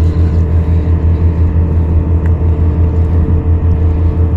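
A steady, loud, low engine hum, one unchanging pitch with several overtones.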